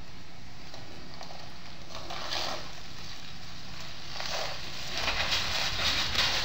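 GMC Sierra pickup truck running with a low, steady rumble as it moves across an icy, slushy driveway. Bursts of hissing come about two seconds in, again about four seconds in, and for most of the last second and a half.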